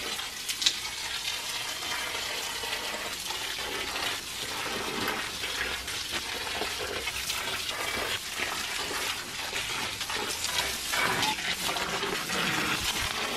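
Water from the open end of a garden hose pouring onto soil in a greenhouse bed and then into a plant pot: a steady splashing hiss.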